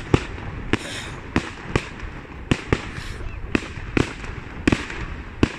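Aerial fireworks display: a rapid, irregular series of sharp bangs as shells burst, about a dozen in five seconds.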